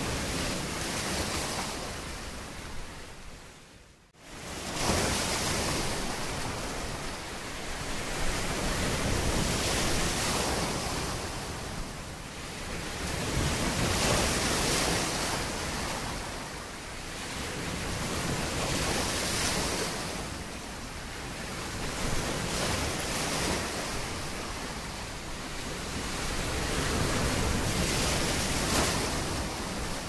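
Sea waves washing on a shore: a steady hiss that swells and ebbs every four to five seconds. About four seconds in it fades almost to nothing for a moment, then comes back.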